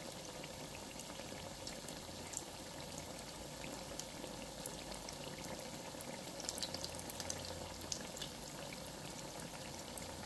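Chicken-filled pastelitos deep-frying in hot oil: a faint, steady sizzle with scattered sharp pops and crackles, which thicken into a brief flurry about two-thirds of the way through.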